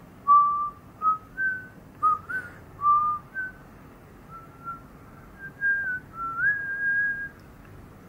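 Someone whistling a slow, simple tune: a string of clear held notes stepping up and down, ending on a longer, higher note.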